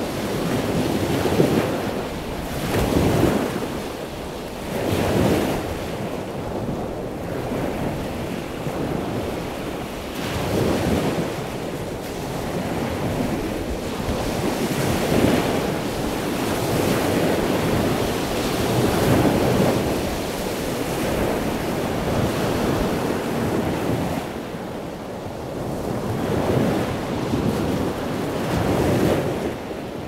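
Ocean surf breaking on a beach: a continuous wash of noise that swells and ebbs every few seconds as waves break and run up the shore.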